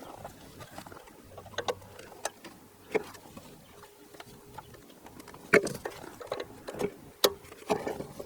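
Scattered sharp clicks and light plastic knocks as wiring-harness connectors are handled and pushed into their sockets behind a car dashboard. The two sharpest clicks come about five and a half and seven seconds in.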